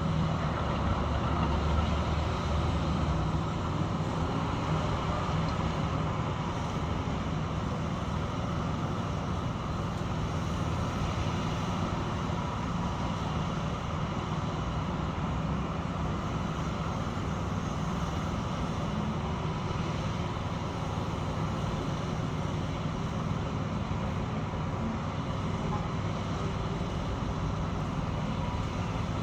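Construction machinery running steadily, a continuous engine drone with a low hum and no distinct impacts.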